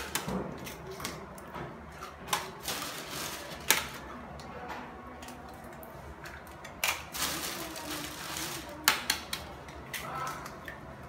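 Wooden stick stirring a liquid egg and coconut-milk batter in a plastic bucket, knocking now and then against the bucket with irregular sharp clicks.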